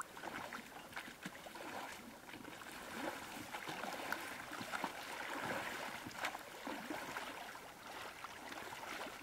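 Light splashing and lapping of river water as a dog swims across, with scattered small clicks throughout.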